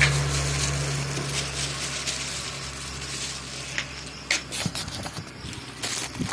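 A motor vehicle's engine hum fades away, then a few scattered light clicks and knocks.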